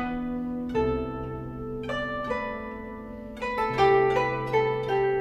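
Background music: a slow melody of plucked string notes over held low notes.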